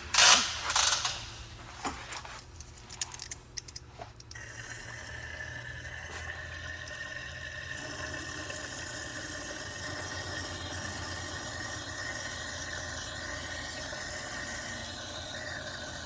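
A few loud knocks and clatter of handling, then water pouring steadily into a car's coolant overflow reservoir, the pour growing fuller about halfway through.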